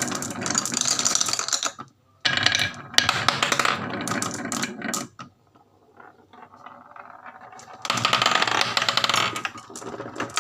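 Marbles rolling and clattering down a wooden marble run: dense runs of fast clicks and rattles in several bursts, quieter for a few seconds in the middle.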